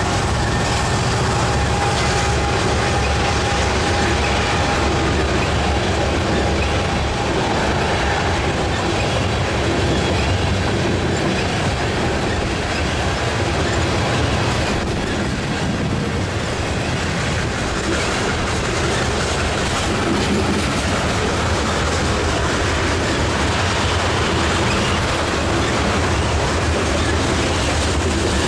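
Freight train cars rolling past close by, tank cars giving way to double-stack container cars. A steady loud rumble of wheels on rail with clickety-clack over the rail joints, and a thin steady whine that fades out over the first several seconds.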